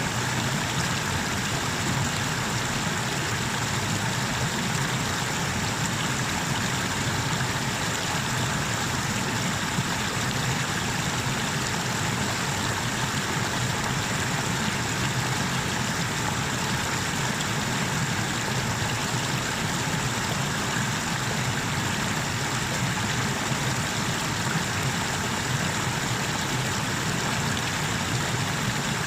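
Water pouring over a small river waterfall: a steady, even rushing noise without a break.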